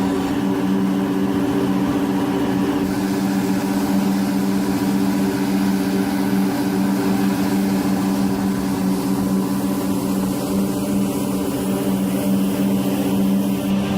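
Heavy construction machine's engine running steadily at constant speed: a continuous, even hum.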